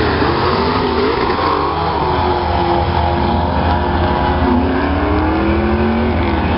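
Drag-racing cars, a Corvette and a Camaro, launching at full throttle and accelerating away down the strip. The engine pitch climbs, drops back at each gear change, and climbs again.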